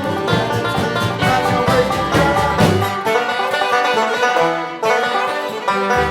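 String band playing bluegrass-style music, with fast banjo picking prominent.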